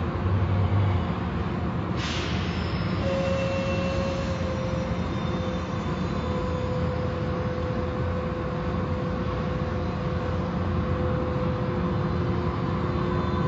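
Automatic car wash machinery running: a steady rumble and rush of noise. A hiss comes in suddenly about two seconds in, and a steady hum starts about three seconds in.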